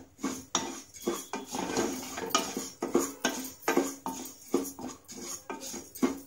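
Wooden spatula stirring dry rice grains and roasted moong dal around a nonstick saucepan: a grainy rattling scrape, about two to three strokes a second.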